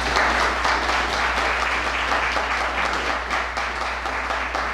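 Audience applauding: many hands clapping in a dense, steady patter that eases slightly toward the end.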